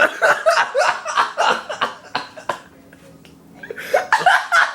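A person laughing hard in quick repeated bursts, breaking off for about a second midway, then laughing again.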